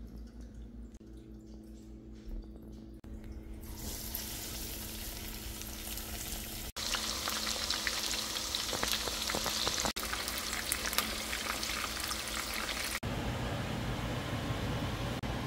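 Breaded chicken tenders frying in hot oil in a skillet: a steady, dense sizzle with fine crackling. It sets in about four seconds in and grows louder about seven seconds in.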